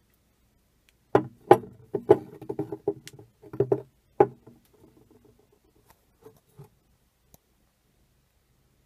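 Glass bottles being handled and set down on a wooden surface: a quick cluster of sharp clinks and knocks lasting about three seconds, then a few faint taps.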